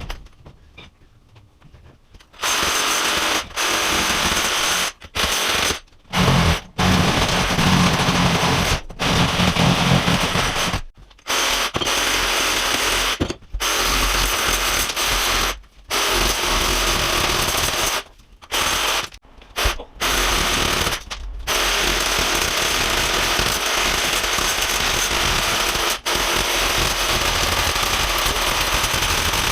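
Electric chipping hammer running in bursts, chiselling glued tile off a wall, with short pauses between bursts. It starts about two seconds in.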